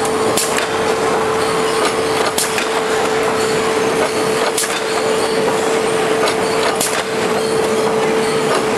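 Veneer composer (core veneer builder) running: a steady machine hum with one constant tone over the rattle of its feed chain and rollers, and a sharp click about every two seconds.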